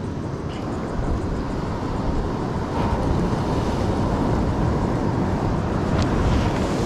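Wind buffeting the microphone over the rush of ocean surf: a steady low noise with no distinct events.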